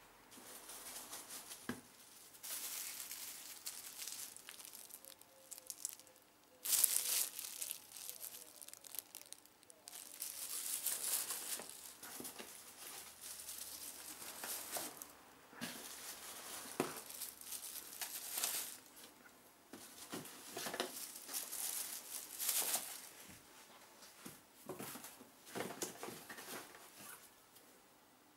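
Plastic bags crinkling and rustling in irregular bursts as plastic-wrapped fireworks are lifted out of a cardboard box and handled, with a few light knocks.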